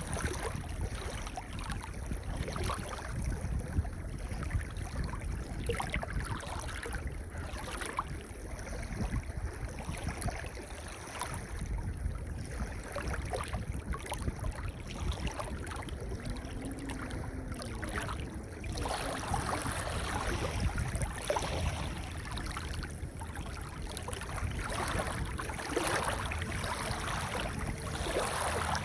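Ocean waves breaking and washing on a pebble beach: a steady low rumble of surf, with a brighter hiss of wash that grows louder about two-thirds of the way through.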